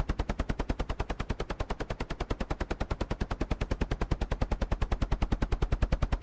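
Helicopter rotor blades chopping in a rapid, even beat of about a dozen strokes a second, the blade sound alone without engine noise.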